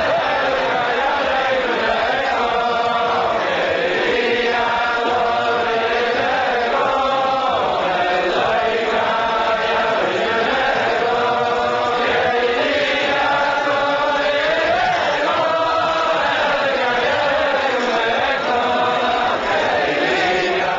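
A crowd of men singing a melody together in unison, in repeating phrases, without instruments.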